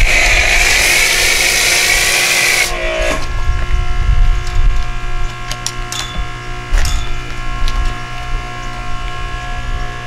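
Pressure washer spraying foam through a foam cannon: a loud hiss that cuts off about two and a half seconds in when the trigger is released. The pressure washer then keeps running with a steady hum, with a few clicks and knocks, until it stops right at the end.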